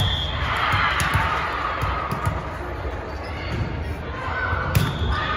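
Volleyball game in a gym: voices of players and spectators echoing through the hall, with cheering as a point is won and a few ball strikes, the loudest a sharp smack near the end.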